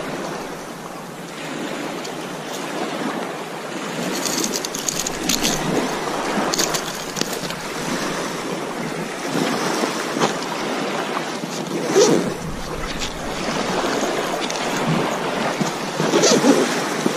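Waves washing on a pebble shore and wind on the microphone, a steady rush, with scattered short clicks and scrapes of gear being handled on the gravel.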